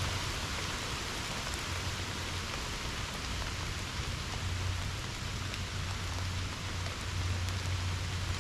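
Steady rain falling, an even hiss with the odd faint drop tick. Under it, a low hum swells and fades a few times.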